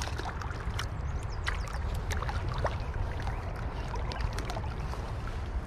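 River water flowing and splashing close to the microphone, a steady low rumble with scattered small splashes and drips.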